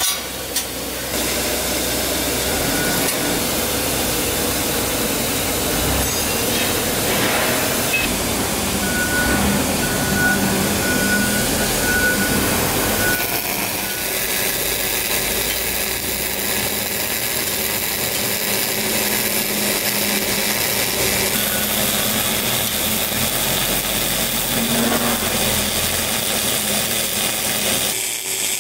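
Robotic Fronius CMT (cold metal transfer) MIG welding arc burning steadily: a continuous noisy hiss.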